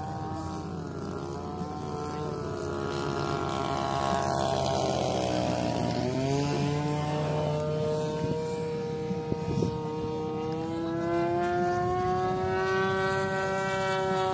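Motor of a radio-controlled Corsair model plane in flight, with a steady buzzing note. Its pitch falls about five seconds in as it passes, then rises again and holds steady near the end.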